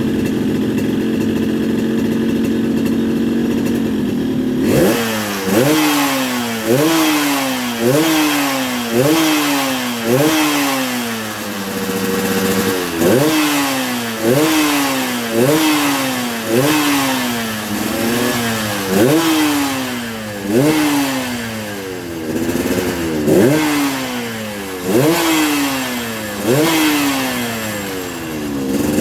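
Yamaha RX-King two-stroke single, set up for the 'ngorok' exhaust note, idling steadily and then blipped repeatedly, about once a second. Each blip is a sharp rise in pitch that falls back toward idle. It settles briefly at idle about halfway through, then the blipping resumes.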